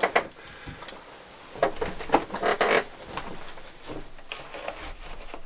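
Scattered handling noises of a person shifting at a table: cloth rustling with a few light knocks and clicks.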